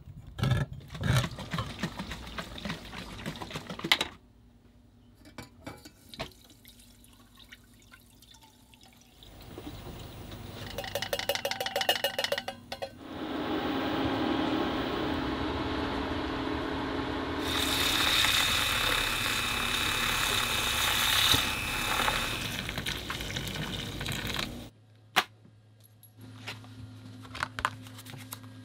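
A hand-crank can opener clicking and grinding around the rim of a can. Then, for a long stretch in the middle, liquid pouring and bubbling in a saucepan on the stove.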